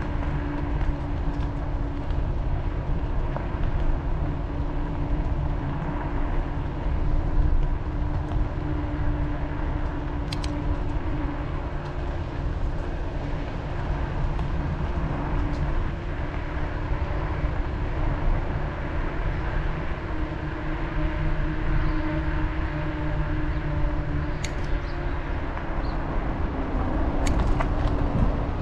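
Steady rolling noise of a bicycle on the move: tyres on pavement and wind on the bike-mounted microphone, with a wavering low hum and a few faint clicks.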